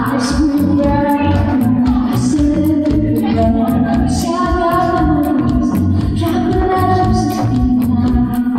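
A woman singing live into a microphone over electronic keyboard accompaniment with a steady beat, her voice holding long, wavering notes.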